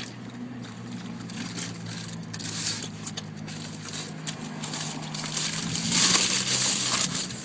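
Boxer dogs licking and smacking their lips with wet clicks over the steady hum of a car idling. A louder hiss of noise comes about six seconds in.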